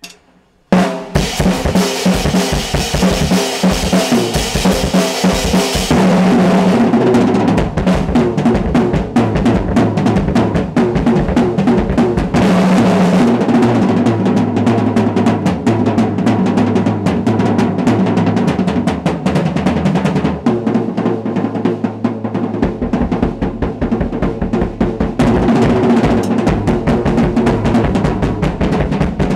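Acoustic drum kit played in a fast, continuous solo. Dense strokes run across the snare and toms with bass drum, starting about a second in, and cymbals ring over the first few seconds.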